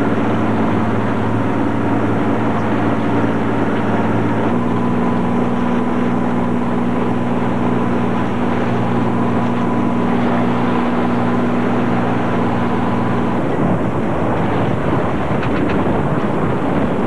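A boat engine drones steadily, its pitch stepping up slightly about four and a half seconds in. It stops about thirteen seconds in, leaving wind rushing on the microphone and water noise.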